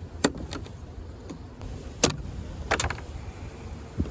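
Several sharp clicks and knocks from hand work on a car's interior door trim panel and its fasteners, a few scattered over a couple of seconds over a steady low rumble.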